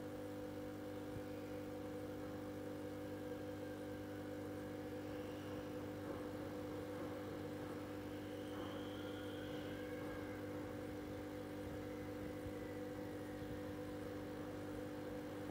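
Steady electrical hum of an aquarium air pump driving a sponge filter.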